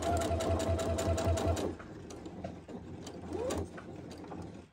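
Alfa electric sewing machine topstitching at a 3.5 stitch length: the motor whines steadily under rapid, even needle clicks, then runs on more quietly about two seconds in, with a short burst of speed and a rising whine a little over three seconds in.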